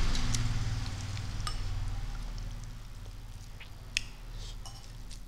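Metal spoon clinking and scraping against a stainless steel bowl as food is scooped out: a few light clicks, the sharpest about four seconds in, over a steady low hum.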